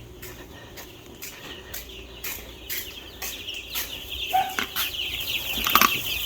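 A brood of young Red Ranger meat chicks peeping in a dense chorus of rapid short chirps, rising in loudness from about four seconds in, over scattered clicks and knocks.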